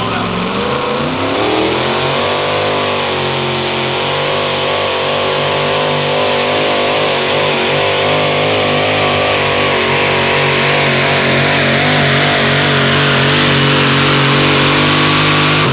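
Mini modified pulling tractor's supercharged engine at full throttle on a pull: it revs up over the first couple of seconds, then holds high revs, loud and steady with a slight wavering in pitch, as it drags the sled.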